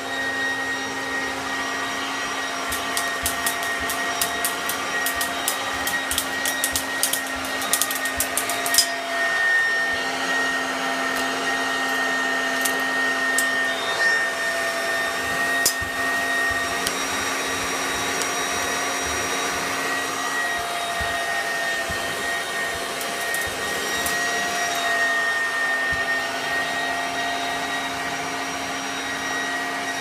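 1971 Hoover Junior 1354A upright vacuum cleaner running steadily with a constant whine, sucking through its hose and crevice nozzle. A flurry of sharp clicks about three to nine seconds in, and a few more later, as bits of debris rattle up the hose.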